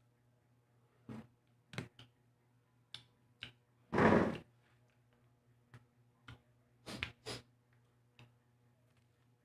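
Scattered light clicks and knocks of objects being handled and set down on a table, with one louder noise lasting about half a second about four seconds in as the person moves away from the table.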